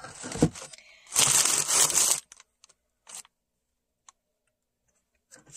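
Crumpled paper crinkling and rustling as it is handled and pressed down, loudest for about a second near the start, then a brief rustle and a small tick.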